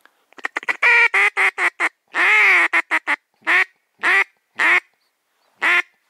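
Duck call blown to imitate a mallard hen, loud and close: a quick run of short quacks, one longer drawn-out quack, then single quacks about half a second apart.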